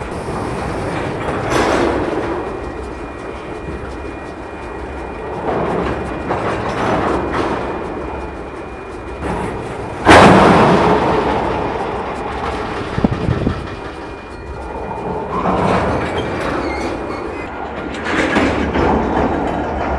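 Railcar couplers banging together as slack runs in and out along a string of tank cars coupled to a locomotive: a series of rumbling thuds, and one sharp, loud bang about ten seconds in that rings and fades over several seconds.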